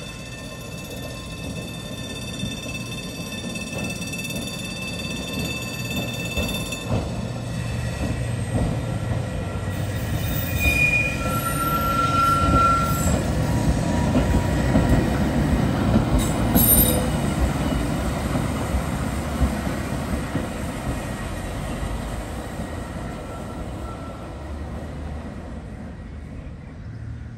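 Snaefell Mountain Railway electric tramcar No. 1 running past on its rails, its wheel and motor rumble growing as it comes near, then fading as it moves away. Brief high wheel squeals come a little before the middle.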